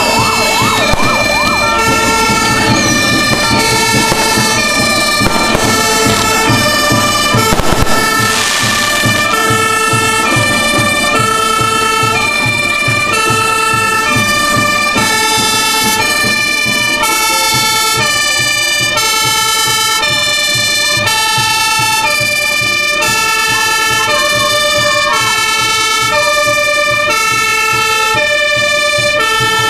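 Fire engine's two-tone siren, alternating steadily between a high and a low pitch. Crowd noise and crackling sound under it for the first several seconds.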